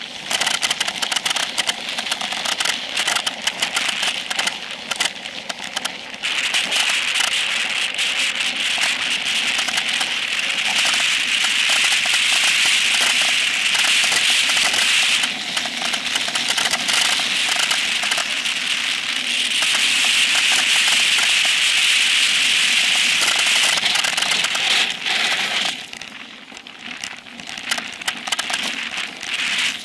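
Specialized Epic Pro mountain bike descending fast on a dirt singletrack: a steady rush of wind and tyre noise on the dirt, with constant rattling and clicking over the bumps. It eases off briefly about halfway through and again near the end.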